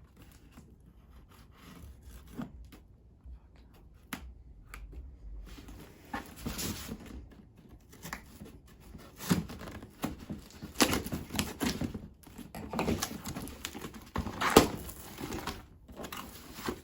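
A small cardboard shipping box being opened by hand: faint ticks at first, then about five seconds in, packing tape tearing and cardboard rustling and scraping, with several loud knocks and clicks.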